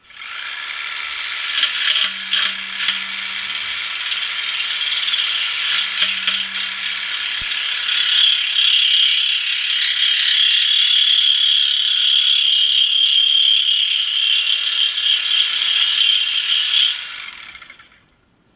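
Milwaukee reciprocating saw cutting through a car's exhaust pipe to take out the muffler. It runs steadily and harshly for about seventeen seconds, then stops.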